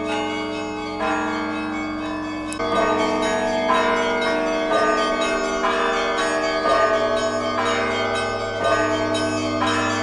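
Russian Orthodox church bells ringing: several bells of different pitches are struck about once a second, and each stroke rings on into the next.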